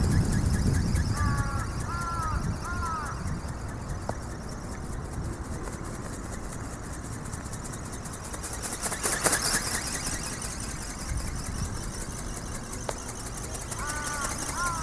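A bird calls in two short runs of three arching notes, about a second in and again near the end, over steady outdoor noise.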